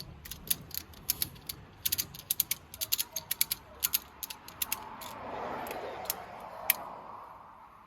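A ratchet clicking in quick, irregular runs of sharp mechanical clicks, then a softer rushing or scraping sound for about three seconds near the end.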